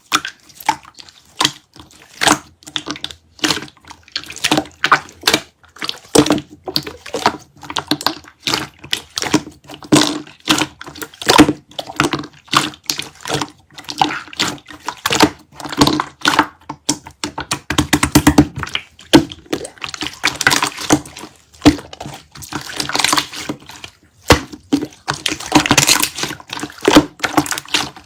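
Clear slime being squished and pressed by hand, making irregular wet clicks and pops of trapped air, several a second.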